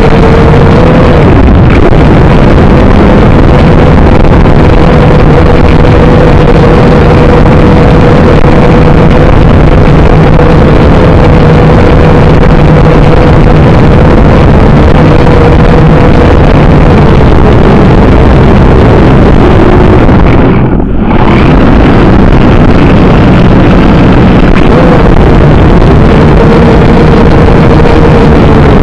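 A camera drone's motors and propellers running, very loud and close through its own onboard microphone: a steady buzzing hum that wavers slightly in pitch. About two-thirds of the way through the sound briefly drops off and then comes back.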